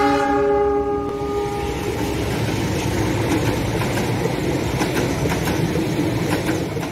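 Locomotive horn sounding and ending within the first couple of seconds, then passenger coaches rolling past with a steady rumble and the clickety-clack of wheels over rail joints.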